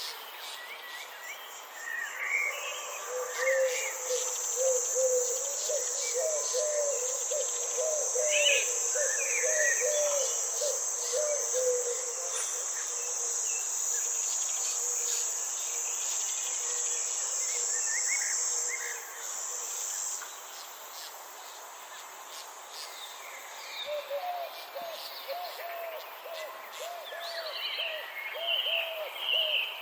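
Garden ambience: an insect trills with a high, steady buzz from a couple of seconds in until about two-thirds through, while birds chirp. Twice, a bird gives a long run of low, quickly repeated hooting notes.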